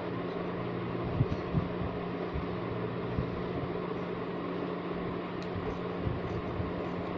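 Steady low hum with an even hiss of room noise, and a couple of soft knocks about a second in.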